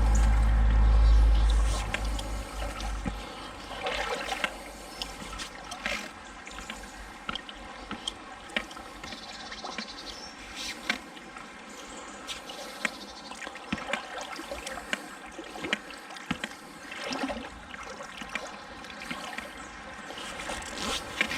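Shallow river water splashing and trickling around someone wading, with many scattered short splashes and knocks. A heavy low rumble covers the first couple of seconds.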